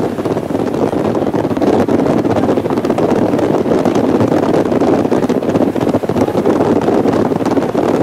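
Strong wind buffeting the microphone: a loud, rough, continuous rushing that covers everything else.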